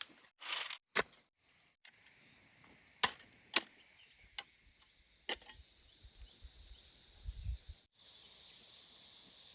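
A handful of sharp, separate clicks or snaps over the first five seconds, then a steady, high insect chorus of crickets or cicadas that comes in fully after a brief break near the end.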